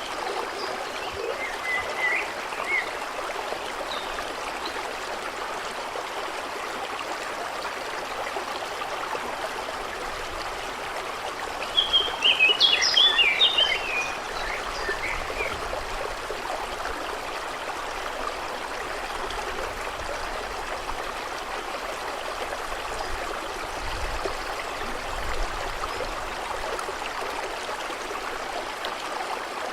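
Steady rush of a flowing stream. A bird chirps a few times about two seconds in, and a louder burst of bird song, the loudest sound here, comes about twelve seconds in.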